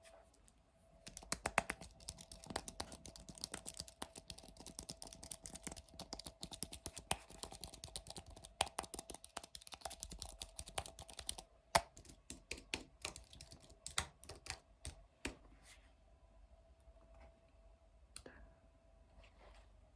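Typing on a computer keyboard: a fast run of key clicks that thins out to scattered single keystrokes a little after halfway.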